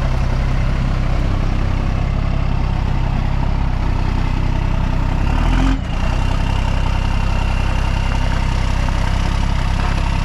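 Car engine running steadily, a continuous low drone that breaks off for a moment about six seconds in and then carries on.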